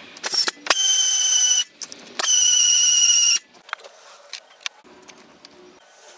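Socket wrench with a 10 mm socket spinning bolts on a car engine's fuel rail: two loud, steady, high whines of about a second each, near the start and about two seconds in, with light metal tool clicks between and after.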